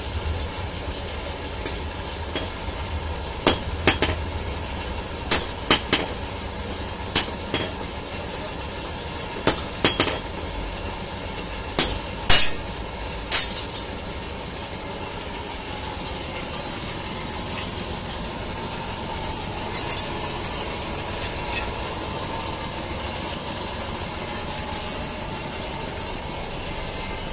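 Blacksmith's hand hammer striking iron on a small anvil: about a dozen sharp, ringing metallic blows at an uneven pace, then only a few light taps over a steady background hum after about halfway.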